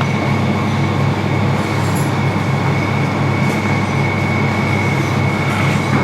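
Steady machine noise with a constant high whine and a low hum, unchanging throughout, with a few faint clicks over it.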